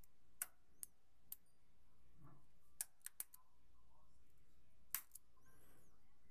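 Faint, scattered sharp clicks and small snaps of a hair elastic being wrapped and twisted around the end of a braid.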